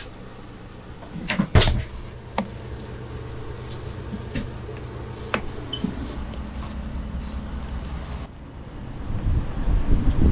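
Knocks and clunks of things being moved about while someone rummages in a pickup truck's bed, over a steady low hum. The loudest knock comes about a second and a half in, and there is louder noise near the end.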